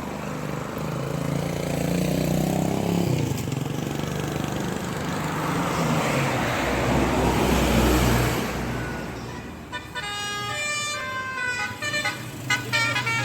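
A large vehicle passes close with engine and road noise, loudest about eight seconds in. From about ten seconds in, a multi-tone 'telolet' (basuri) bus horn plays a quick tune of changing notes.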